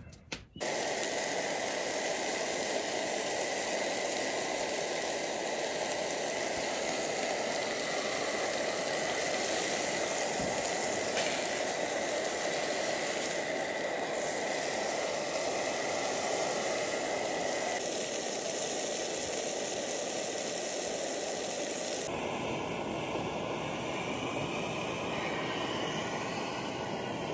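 Steaks cooking on a camp stove: a steady, even hiss from the sizzling pan and burner. The sound shifts abruptly twice in the latter part.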